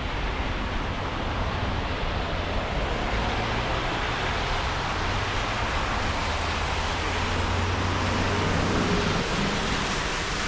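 Steady city road traffic: cars' engines and tyre noise passing in a continuous wash that swells for a few seconds in the middle, over a low steady hum.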